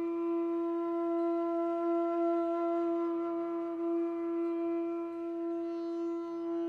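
Background music holding one steady droning note with its overtones, unbroken throughout.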